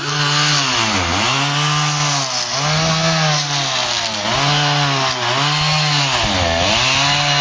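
Two-stroke chainsaw running at high revs while cutting wood. Its pitch sags several times as the chain bites in, then recovers.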